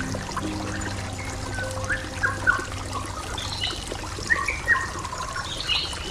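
Water trickling and gurgling, with small irregular splashes. Faint held music notes fade out in the first couple of seconds.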